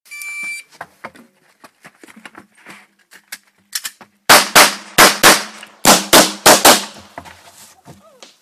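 A short electronic shot-timer beep, then from about four seconds in a string of about ten loud gunshots, mostly in quick pairs, from a competition shooter.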